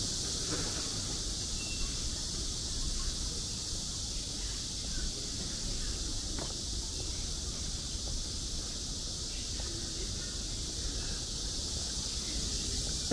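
Outdoor street ambience: a steady high-pitched hiss with a low rumble beneath, and a faint knock about six seconds in.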